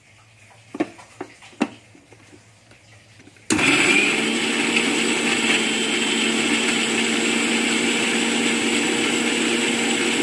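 Electric mixer grinder blending green chillies and coriander leaves with a little water in its steel jar. First come a few knocks as the jar is fitted onto the base. About three and a half seconds in the motor starts abruptly, runs steadily, and cuts off suddenly near the end.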